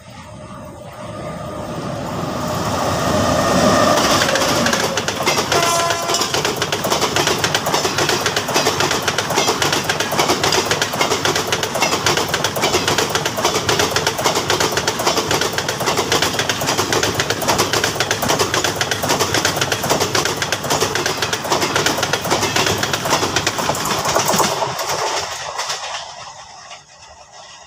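Jamnagar–Tirunelveli superfast express train crossing a river bridge at speed: the rumble of wheels on rails builds over the first few seconds as it approaches, with a brief horn note about six seconds in. A steady loud roar and clatter follow as the coaches go past, and the sound drops away suddenly near the end.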